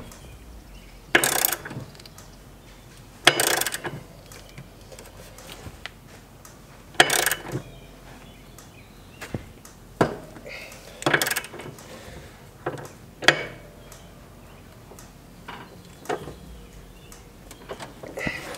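Socket ratchet clicking in short, irregular bursts as the bolt holding a hitch adapter to an ATV's rear hitch is tightened down, the star washer starting to bite into the metal.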